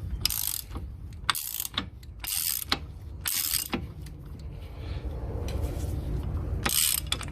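Socket ratchet clicking in short strokes as the already-loosened 1-5/16 in axle nut is backed off the hub. There are four strokes about a second apart, a pause, then one more near the end.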